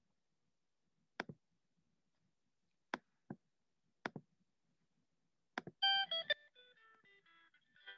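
A few sharp computer mouse clicks, some in pairs. About six seconds in, a YouTube video's intro music starts: a short run of quick stepping notes that ends in ringing tones.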